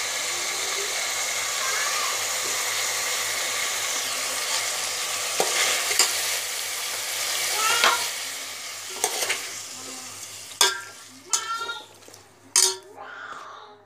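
Small whole fish sizzling in oil and masala in a metal pot while a steel spoon stirs them, clinking and scraping against the pot. The sizzle fades over the second half, leaving a few sharp knocks and scrapes.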